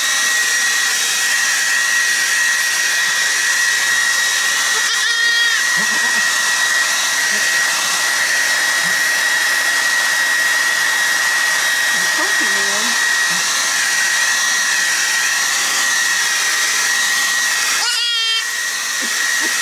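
Handheld hair dryer blowing steadily on a goat kid to dry its damp coat: a constant rush of air with a steady high whine.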